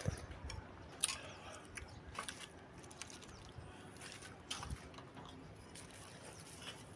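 Close-miked chewing of meatballs and noodles: soft, scattered wet mouth clicks and smacks, a few sharper ones about a second in, just after two seconds and around four and a half seconds.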